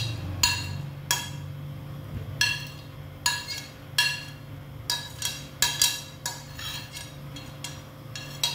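A metal spoon clinks again and again against a plate as chopped vegetables are scraped off it, about fifteen uneven, ringing taps. A steady low hum runs underneath.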